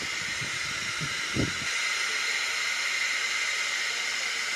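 Steady hiss from the loudspeaker of a 2N3055 transistor power amplifier turned to full volume with no audio coming through. This is the no-sound fault that the repairer puts down to burnt 3055 output transistors. A brief low knock comes about a second and a half in.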